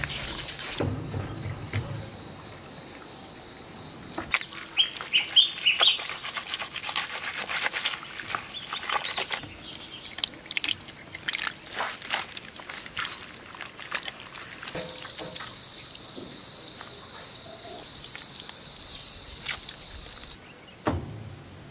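Tofu-tree leaves worked with a wooden stick in a bowl, then the green pulp squeezed through a cloth: a run of irregular wet clicks and squelches with a few dull thuds at the start. A steady high insect buzz and a few bird chirps underneath.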